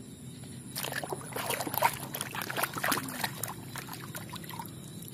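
Hand splashing and sloshing in a basin of muddy water while washing a toy: irregular splashes starting about a second in and lasting about two seconds, then quieter water movement.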